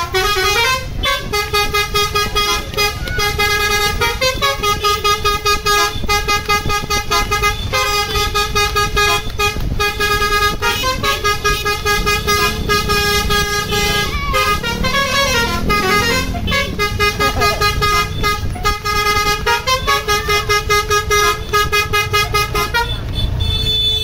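Tour bus's basuri 'telolet' horn, a multi-trumpet musical air horn, playing a fast pulsing tune of several notes over and over, with a few sliding notes about halfway through. The bus's engine runs underneath.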